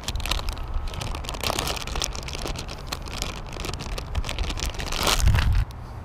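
Crinkling and rustling of a plastic packet of soft-plastic fishing baits being torn open and handled up close, with the loudest crinkle about five seconds in.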